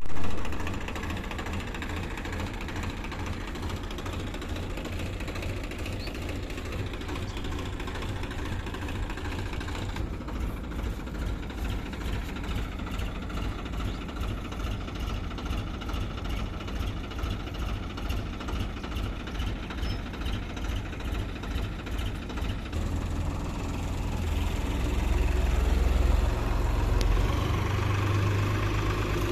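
Wheat combine harvester's engine idling steadily with an even pulse, then speeding up from about three-quarters of the way through, its pitch rising near the end.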